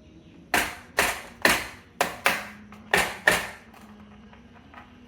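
Marbles dropping and knocking, seven sharp clacks each with a short ring, spread over about three seconds and then stopping.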